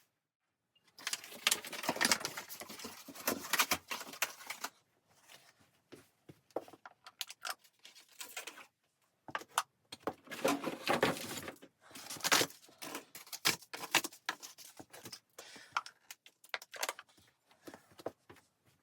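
Irregular handling noises: rustling with many small clicks and knocks, loudest in two stretches, one starting about a second in and another about ten seconds in.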